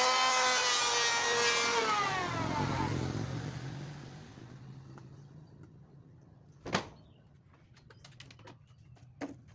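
A corded hand power tool's electric motor whines, then is released and winds down over about three seconds, its pitch falling as it fades. A single sharp knock comes about halfway through, followed by faint light clicks.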